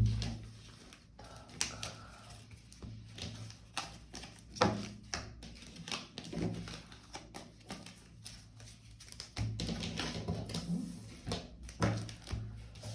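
Tarot cards being gathered up and handled on a table: an irregular scatter of light taps and clicks, with a few louder knocks.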